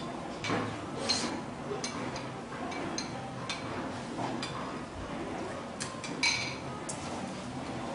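A pot of duck soup at a rolling boil, the broth bubbling steadily with scattered light clinks and ticks, the loudest about six seconds in.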